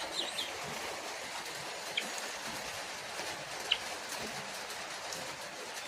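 A pet bird giving a few short, high chirps: a couple near the start, one about two seconds in and a sharper one near four seconds, over a steady background hiss.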